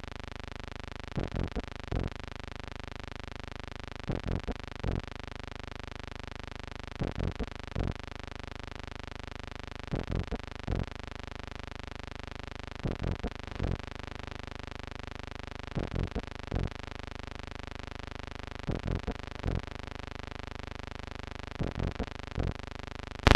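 Steady hiss and hum of an old film soundtrack, with a soft cluster of three or four short pulses repeating about every three seconds.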